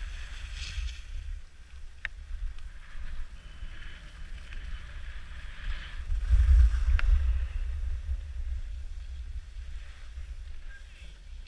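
Wind buffeting the camera microphone while skiing, a low rumble that swells for a couple of seconds past the middle, over the hiss of skis sliding on packed snow. Two short sharp clicks, one about two seconds in and one about seven seconds in.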